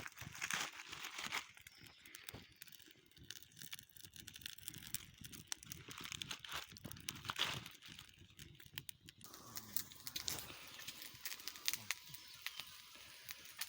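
Faint, irregular rustling and crackling, made of many small clicks and crunches, which gives way to a steadier faint hiss about nine seconds in.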